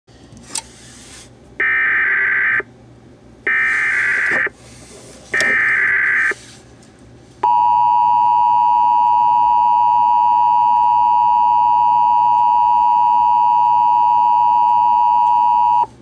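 EASyCAST Emergency Alert System encoder sending a SAME header: three loud one-second bursts of screeching data tones, followed by the steady two-tone EAS attention signal held for about eight and a half seconds that announces an alert is about to be broadcast. A single click comes about half a second in.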